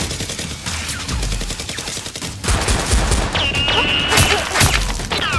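Rapid automatic gunfire sound effects, a fast unbroken string of shots that gets louder about two and a half seconds in. A high steady whine lasting about a second joins it a little past three seconds in.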